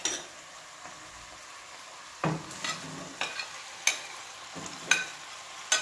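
Chicken frying in a pan with a steady sizzle, stirred with a utensil that clinks sharply against the pan about seven times.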